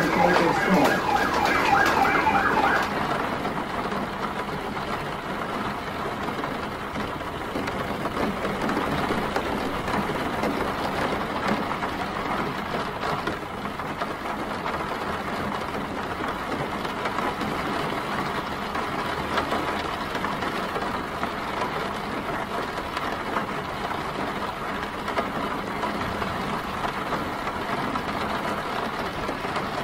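Steady rain and city traffic noise, an even hiss that holds level throughout. For the first three seconds a pitched, rapidly repeating warbling tone sounds over it, then stops.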